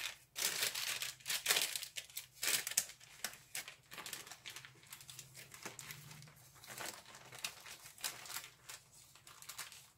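Baking paper crinkling and rustling in irregular bursts as it is peeled off a baked sponge sheet, busiest in the first few seconds, then fainter and sparser.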